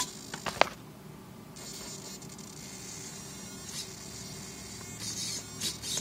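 A few sharp clicks, then about one and a half seconds in a steady high-pitched electric buzz starts and holds: an RC drift car's steering servo buzzing under power, which the owner puts down to the servo not yet being adjusted.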